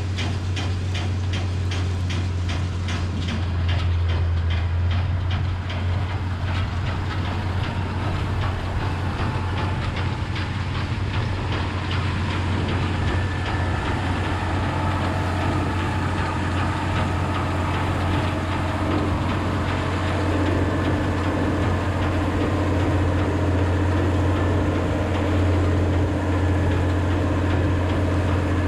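Massey Ferguson 3505 tractor's diesel engine running steadily while working a Claas Rollant 85 round baler, with a rapid rhythmic clatter of about four clicks a second that fades out about halfway through.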